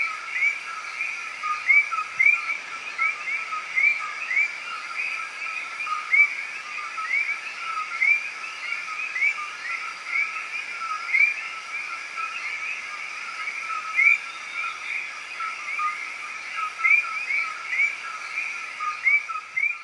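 Many small birds chirping together: short rising chirps overlap continuously, several every second, over a faint steady background hiss.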